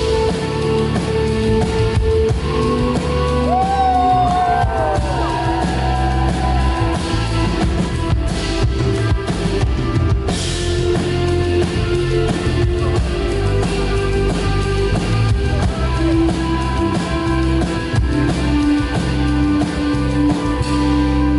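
A rock band playing live through a PA, with drum kit and guitar, in a loud, steady stretch of the song.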